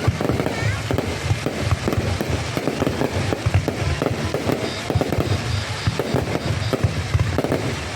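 Fireworks going off: a dense, unbroken run of rapid pops and bangs.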